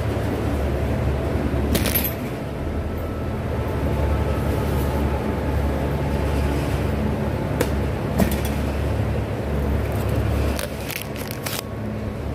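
Two 40-pound cardboard boxes of chicken being lifted and set onto a metal flatbed cart, giving a few knocks about two seconds in and again around eight seconds. Near the end comes a quick cluster of rattles. Under it all runs a steady low machinery hum.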